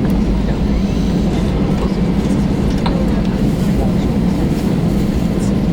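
Steady low cabin rumble inside an Airbus A320-214 rolling on the ground after landing, its CFM56-5B engines at low power.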